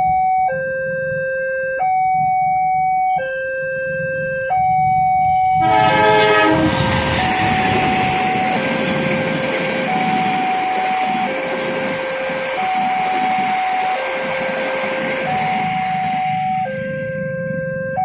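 Level crossing warning alarm sounding an alternating two-tone chime, the tones swapping about every second and a half. About six seconds in, a passenger train arrives and the rushing noise of its wheels on the rails covers much of the alarm for about ten seconds, then the alarm stands clear again near the end.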